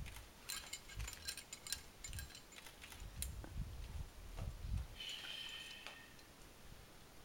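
A camera shutter firing in quick runs of sharp clicks over the first three seconds or so, with a few faint low thumps. A brief high-pitched tone follows about five seconds in.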